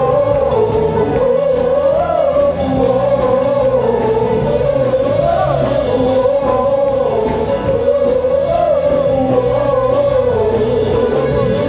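Live church worship music: a band playing with voices singing a slow, wavering melody line over it, in a large hall.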